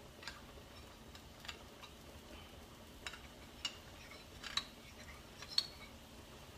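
Metal utensil clinking lightly against a small bowl while cornstarch slurry is stirred: a few sharp, irregular ticks about once a second over a faint steady background.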